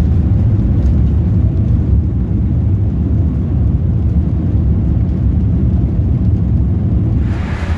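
Boeing 787 cabin on the landing rollout: a steady, loud, low rumble from the wheels on the runway and the Rolls-Royce Trent 1000 engines.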